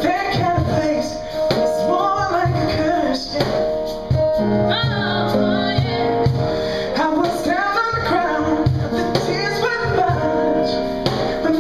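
Live music with singers on microphones, female voices most prominent, over sustained chords and a steady low beat.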